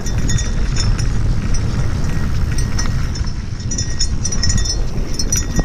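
Wind buffeting the microphone and mountain bike tyres rolling over a dirt road on a fast downhill run, with scattered clicks and rattles from the bike and gravel.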